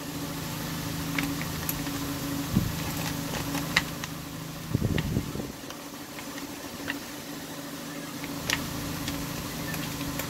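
Steady low mechanical hum, with scattered clicks and a short run of knocks about five seconds in as the plastic top cover of an Echo CS-4500 chainsaw is handled and fitted by hand.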